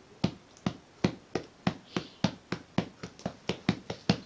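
A hand repeatedly patting a cat's back with steady thumps, about four a second, drumming on the cat's body.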